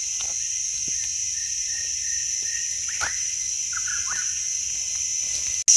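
Steady high-pitched insect drone, with a few short bird calls about three and four seconds in.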